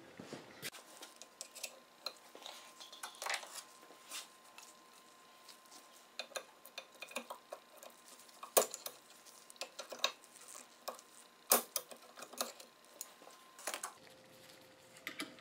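Snap-ring pliers and a small screwdriver clicking against the metal of a Ford power steering gearbox's input shaft housing while a snap ring is worked out. The clicks are light and scattered, with a few sharper ones.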